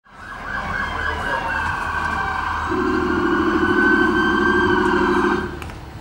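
Several emergency-vehicle sirens sounding at once, their tones wavering over one another. A lower, rapidly pulsing siren tone joins about halfway through, and all of it cuts off suddenly shortly before the end.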